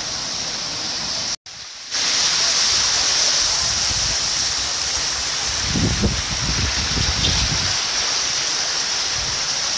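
Fast-flowing floodwater rushing across a road, a loud steady rush. After a short break about a second and a half in, it goes on louder with splashing as a car wades through the current, and a low rumble comes through in the middle.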